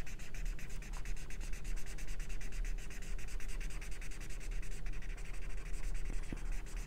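Green felt-tip marker scrubbing back and forth on drawing paper in quick, even strokes as a leaf shape is shaded in.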